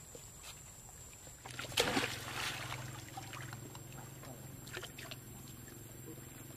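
Macaques splashing and sloshing in shallow pond water, with one louder splash about two seconds in, then lighter splashes over a steady low hum.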